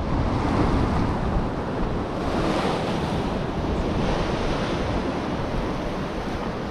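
Sea surf breaking and washing over a rock shelf, a steady rushing with one wash swelling about two and a half seconds in, and wind buffeting the microphone.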